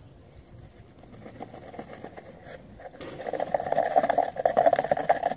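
Sand and gritty weighting filler pouring and rattling out of a flattened brass oil-lamp base as it is tipped. The dense gritty crackle builds from about a second in and is loudest near the end.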